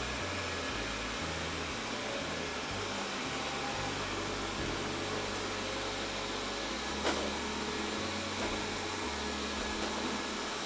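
Robot vacuum cleaner running with a steady hiss, with a single sharp click about seven seconds in.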